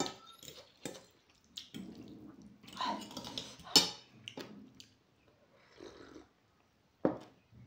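Close-up eating sounds of spicy instant ramen: noodles slurped, then wet chewing and smacking with scattered sharp mouth clicks. Near the end there is a sip of cola from a glass.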